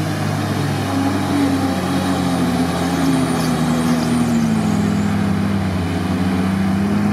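Engines of a 1.8-litre Lada Niva and a 3.3-litre Nissan Patrol running hard together, pulling through deep mud in a side-by-side drag race. The engine note sags a little in the middle and climbs again near the end.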